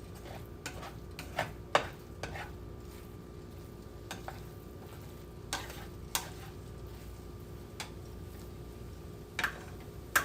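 A utensil stirring and scraping ramen stir fry in a frying pan, with irregular short clicks and scrapes over a faint steady frying hiss and hum.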